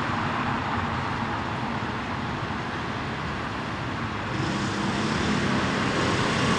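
Street traffic noise: a steady rumble and hiss of passing cars that grows somewhat louder about four seconds in.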